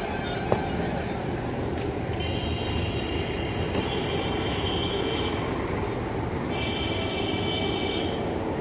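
Steady rumble of road traffic, with a high, steady tone that sounds twice: for about three seconds, then for about a second and a half near the end. A single sharp click about half a second in.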